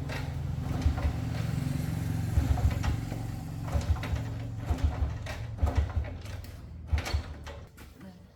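Motorbike engine running steadily, with repeated clicks and knocks of parts being handled; the running stops shortly before the end.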